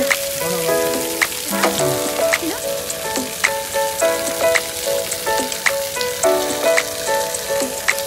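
Steady hiss of water pouring from a giant faucet-shaped fountain and splashing into a stone basin, with background music playing a melody underneath.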